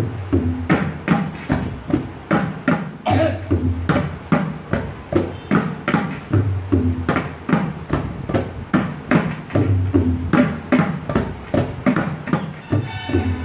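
Two tabla pairs played together, practising the bol "ge ge tita ke ke tita": a steady run of quick, sharp strokes on the small dayan drums, with deep ringing bass strokes from the bayan coming round about every three seconds as the phrase repeats.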